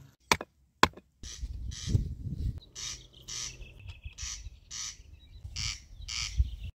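A stone striking the base of a metal antenna mast twice with sharp knocks, driving it into the ground. This is followed by a string of short scraping and rustling bursts, roughly every half second, as the antenna's telescopic arms are handled.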